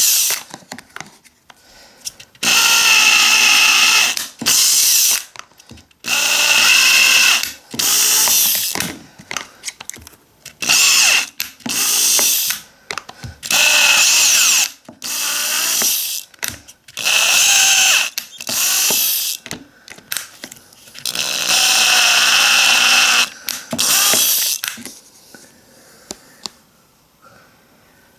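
Black+Decker cordless drill with a small twist bit boring holes through the bottom of a thin clear plastic container: about a dozen short whining bursts of a second or two each, with brief gaps between. Near the end the drilling stops, leaving only light clicks of the plastic container being handled.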